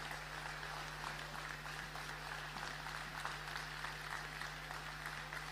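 Audience applauding steadily, a mass of hands clapping, in a hall, over a steady low electrical hum.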